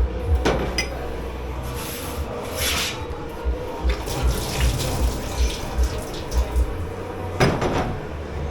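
Washing up at a commercial dish pit sink: tap water running and dishes being rubbed and scrubbed, with a few short louder rushes of noise over a steady hum.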